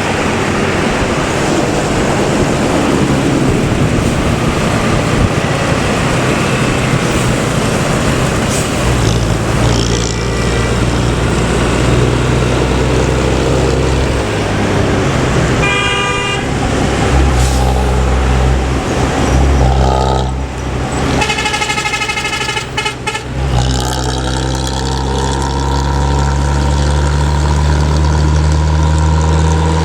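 Diesel intercity buses running on a highway, with road and engine noise. A bus horn gives a short blast about halfway through, then a rapid run of repeated horn notes a few seconds later, and a deep, steady diesel engine drone takes over for the last several seconds.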